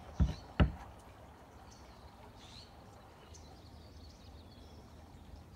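Two sharp taps about half a second apart just after the start, then quiet outdoor background with a few faint bird chirps.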